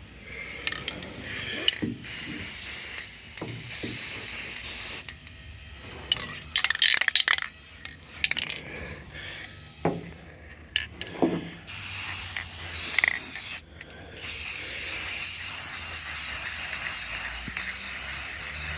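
Aerosol spray-paint can spraying in a series of long hissing passes. Between passes, around the middle, there are clusters of sharp clicks and rattles. The final pass, from about three-quarters in, is steady.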